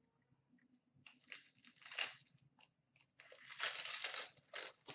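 Foil wrapper of a hockey card pack being torn open and crinkled by hand. There are two bursts of crackling, about a second in and again from about three seconds in, the second longer and louder.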